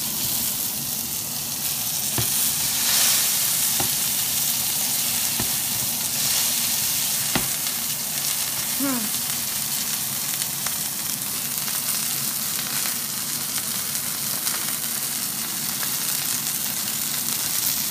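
Rump steak frying in hot oil in an iron pan, a steady high sizzle, with a few sharp clicks along the way.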